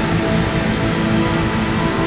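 Experimental black/doom metal music: a dense, steady wall of guitar holding sustained chords.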